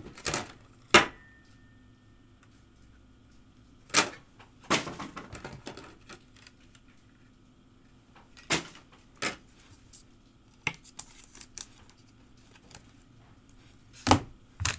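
Sharp plastic clicks and taps of trading cards in hard plastic holders being handled and set down, coming singly or in small clusters a few seconds apart, with a short rustle of handling about five seconds in.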